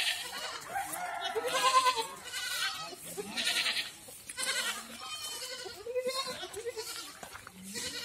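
A herd of goats bleating, many quavering calls overlapping one after another.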